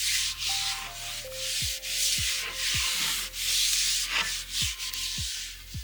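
Cloth rubbing linseed oil into a wooden tool handle in repeated back-and-forth strokes, a dry swishing about every half second to second. Faint background music with a regular beat runs underneath.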